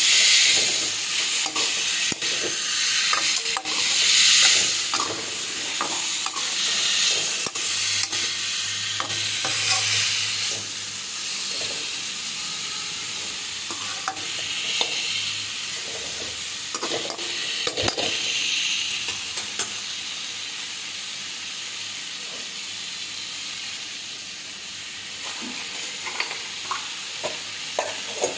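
Cauliflower and potato sizzling as they fry in a metal kadai, with a slotted metal spoon scraping and tapping against the pan as the mixture is stirred. The stirring is louder and busier in roughly the first ten seconds, then eases.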